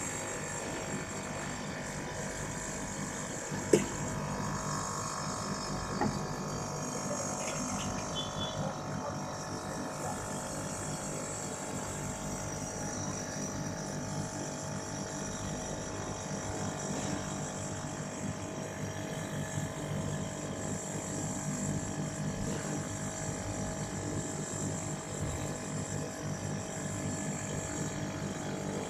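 ZXL 750 refrigeration condensing unit running, its compressor giving a steady hum and whine with many steady tones: a noise taken for a fault. Two short sharp clicks sound a few seconds in.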